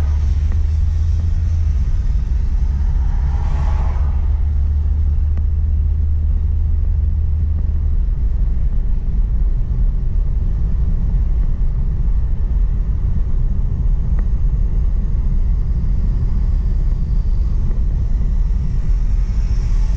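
Steady low rumble of a car driving, heard from inside the cabin: road and engine noise. A low hum in it stops about eight seconds in.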